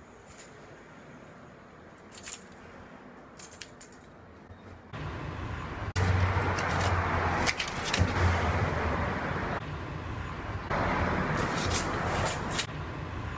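Keys jingling and clinking in someone's hands: a string of short metallic clicks, over a steady rushing noise that jumps much louder about five seconds in.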